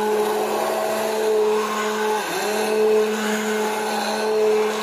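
Electric hand blender running steadily, its blade churning thick mango pulp; the motor pitch dips briefly about two seconds in, then recovers.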